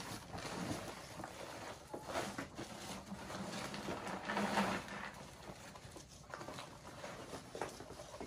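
A woven sack rustling as it is lifted and tipped, with dry feed or grain pouring out of it into a plastic bucket, loudest about halfway through, then the emptied sack crinkling as it is handled.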